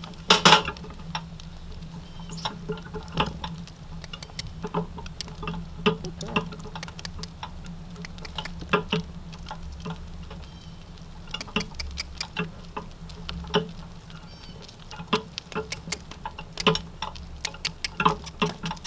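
A donkey walking on wet pavement while pulling a cart: irregular clopping and clicking from its hooves and the harness and cart, over a steady low hum. The sharpest click comes about half a second in.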